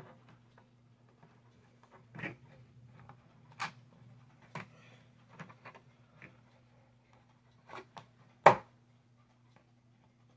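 Irregular clicks and knocks as an AA battery is pressed into a plastic wall clock's battery holder and the plastic clock case is handled, the loudest knock coming late. A faint steady low hum runs underneath.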